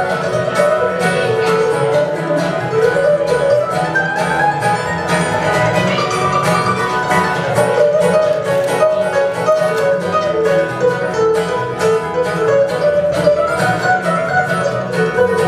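Acoustic bluegrass-style string band playing an instrumental break with fast picking: fiddle, mandolin, acoustic guitar and upright bass, no singing.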